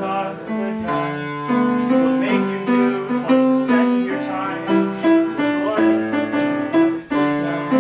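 Piano playing an instrumental accompaniment passage, a run of held notes and chords changing in a steady rhythm.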